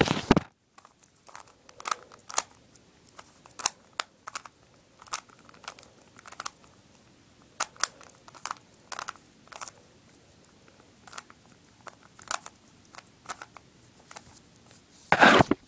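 A plastic 3x3 Rubik's Cube being scrambled by hand: irregular clicks and clacks as its layers are turned, sometimes several a second. There is a louder knock and rustle at the very start and again just before the end.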